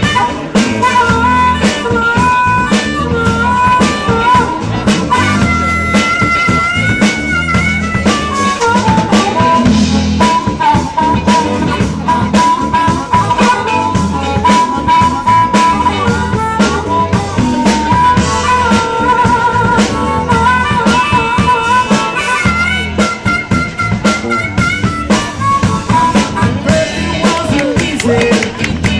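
Live band playing an instrumental passage outdoors: a drum kit keeps a steady beat under a wavering lead melody line.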